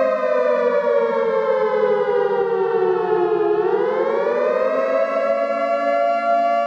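Civil defense siren sounding a nuclear alarm: a loud, steady chord of tones that slowly falls in pitch for about three and a half seconds, then climbs back over about a second and a half and holds.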